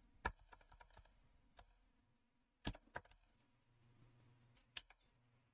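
Faint keystrokes on a computer keyboard: a quick run of taps in the first second, then a few single, sharper key presses spaced out through the rest.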